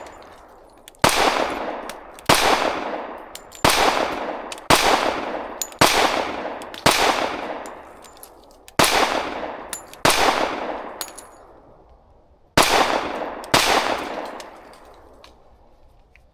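Ten .45 ACP pistol shots from a ported Girsan Witness 2311 Brat, fired at roughly one a second with two short pauses. Each shot is a sharp report that trails off over about a second.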